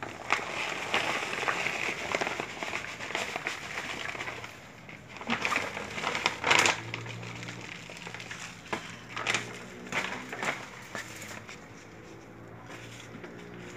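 Plastic potting-soil bag crinkling and rustling as soil is poured from it into a plant pot, with scattered sharp crackles and clicks. The rustling is densest in the first few seconds, then thins to separate crackles.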